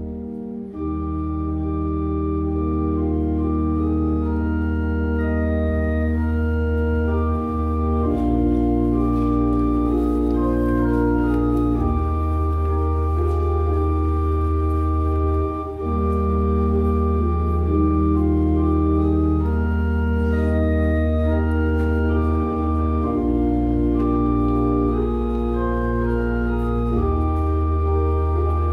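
Organ playing a hymn slowly in sustained chords over deep pedal bass notes, with a brief break between phrases about halfway through.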